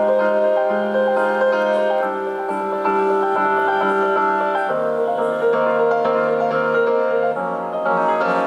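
Jazz piano trio playing live, the piano carrying ringing chords that change about five seconds in.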